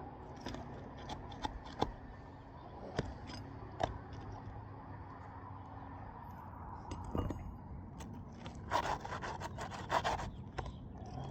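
Scraping and prying under asphalt roof shingles as a roofing nail is worked loose from underneath, with scattered sharp ticks and a quick run of rasping strokes about nine to ten seconds in.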